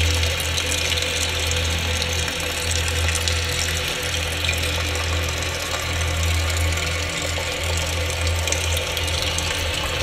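Electro-acoustic ambient soundscape: a steady low drone under a dense hiss scattered with fine crackles.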